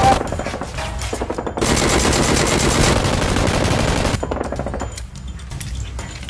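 Rapid automatic gunfire in two long bursts, a brief break between them about a second and a half in, the second burst stopping about four seconds in.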